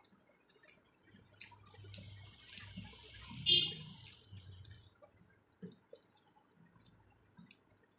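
Close-miked wet eating sounds of rice and dal being eaten by hand: soft lip smacks and small mouth clicks, with a longer breathy sucking sound in the middle, loudest about three and a half seconds in.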